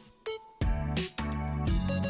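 Instrumental background music: short held notes starting and stopping in a steady pattern.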